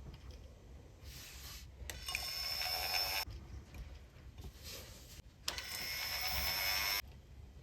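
A small electric motor running in two short bursts of about a second and a half each, with a steady high whine over a hiss, starting and stopping suddenly.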